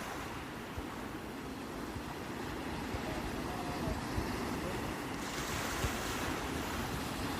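Sea waves on a shore: a steady rush of surf that swells into a brighter, hissing wash about five seconds in.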